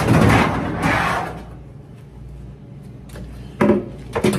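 Sheet-metal dryer cabinet parts being handled: a loud rough scrape lasting about a second, then a couple of sharp knocks near the end.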